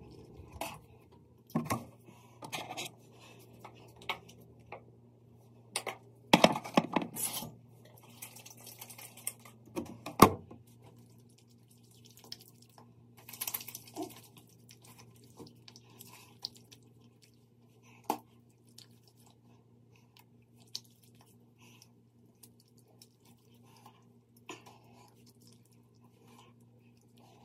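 Toiletry bottles and containers being handled at a bathroom sink during a face wash: scattered clicks and knocks, with some water dripping and splashing. The knocks cluster around a third of the way in. A faint steady low hum runs underneath.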